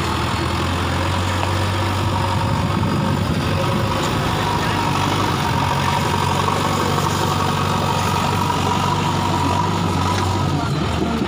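JCB 3DX backhoe loader's diesel engine running steadily as the front loader bucket lifts and pushes mud, a thin steady whine sitting above the low engine note.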